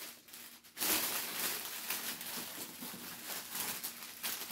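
Thin clear plastic shrink-wrap bag crinkling and rustling as it is pulled down and handled around a gift basket, starting about a second in.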